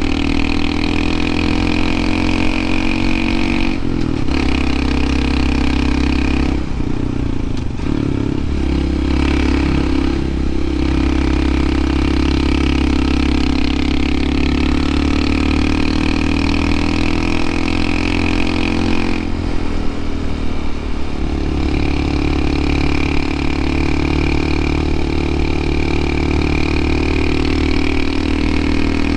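Honda CT125 Hunter Cub's 125 cc single-cylinder engine pulling hard up a steep mountain grade. The engine note breaks and settles at a new pitch three times, about 4, 7 and 20 seconds in.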